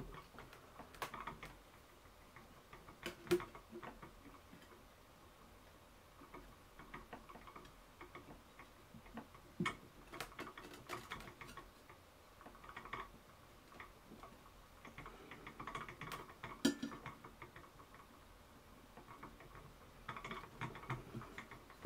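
Faint, scattered clicks and taps of small plastic fixing plugs being fitted by hand into the corners of a glass formicarium's lid, with a few sharper clicks among them.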